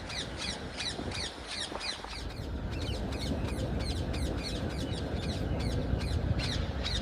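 A bird calling: a rapid, even run of short, high, falling calls, about three a second, over a steady outdoor hiss.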